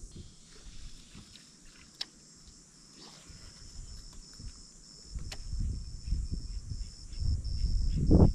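An insect chirping in a high, even pulse about two to three times a second. A low rumble builds from about five seconds in and is loudest near the end.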